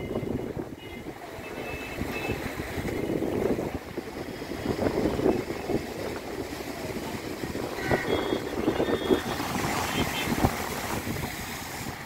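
Gusty sea wind buffeting the microphone over the wash of rough surf breaking against concrete breakwater blocks.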